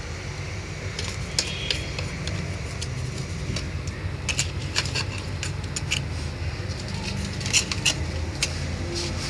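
Small metal tool scraping and clicking through dry potting soil strewn with eggshell pieces, an irregular run of short scratches and ticks while the fertilizer is worked into the soil.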